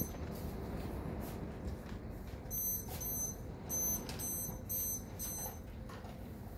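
Lightning detector beeping, a run of short high-pitched beeps, mostly in pairs, starting about two and a half seconds in; each pair signals a lightning strike within 15 miles. Under it, the steady hiss of heavy rain.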